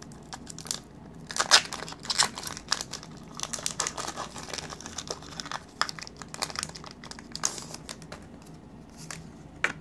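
Foil wrapper of a Pokémon TCG XY Evolutions booster pack crinkling as it is opened by hand, with irregular crackles throughout.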